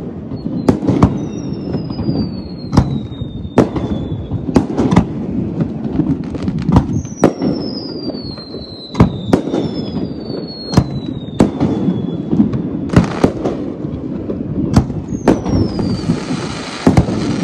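Aerial fireworks display: a run of sharp bangs from bursting shells, about one a second, over a constant low rumble. Several whistles fall in pitch, and there is a short hissing burst near the end.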